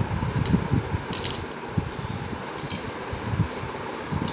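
Small wooden puzzle pieces being handled and fitted together by a child's hands: light clicks and scrapes, with two sharper taps about a second and just under three seconds in, over a low uneven rumble.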